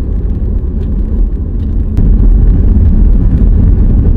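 Steady low road and engine rumble of a moving car, heard from inside the cabin. About halfway through there is a click, after which the rumble is louder.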